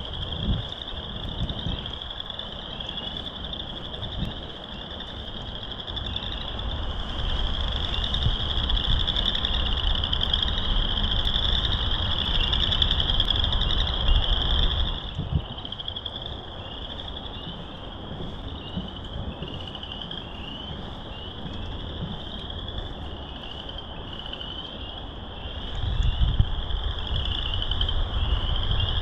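A chorus of many frogs calling from the marsh: short high rising trills overlapping without a break. Wind rumbles on the microphone underneath and picks up for several seconds in the middle.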